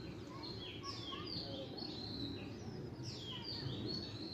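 Many birds chirping at once: a constant overlapping chorus of short, falling calls, over a steady low background rumble.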